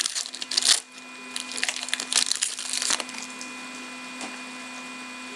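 Foil trading-card pack being torn open and its wrapper crinkled, in several bursts of rustling over the first three seconds. After that only a faint steady hum remains.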